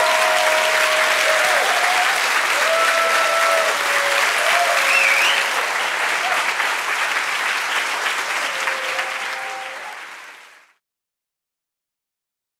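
Audience applauding, with a few voices cheering over the clapping. The applause fades out about ten seconds in, leaving silence.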